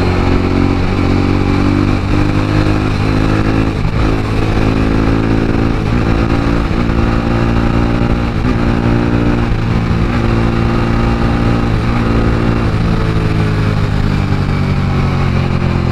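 Motorcycle engine run hard at road speed, its pitch climbing and dropping again and again as the rider works the throttle.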